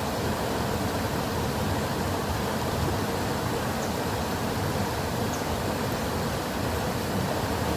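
Flowing water, a steady, unbroken rushing.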